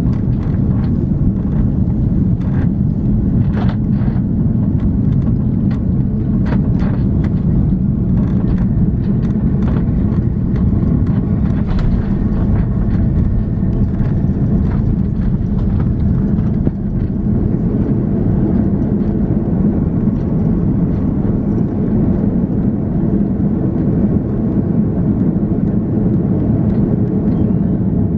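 Steady low rumble of an Airbus A340-300 heard from inside the passenger cabin, with frequent rattling clicks over roughly the first half that thin out later.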